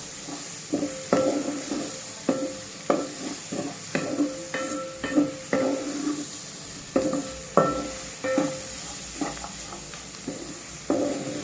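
A spoon stirring and scraping through frying tripe, onions and green peppers in a pan. It knocks the pan repeatedly, about once or twice a second, and each knock makes the pan ring briefly, over a faint sizzle.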